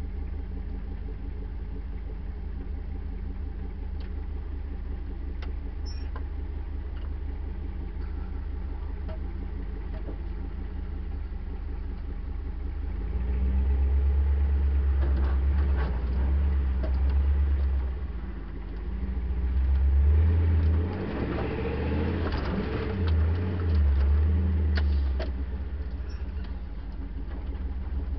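Land Rover Series 2a engine idling steadily, then pulling away about halfway through and running under uneven, surging throttle as it crawls over a rough, rutted dirt track, with scattered knocks and rattles from the vehicle.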